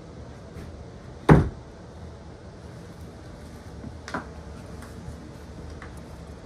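A single loud thump about a second in, then a lighter knock about four seconds in, over a low steady hum.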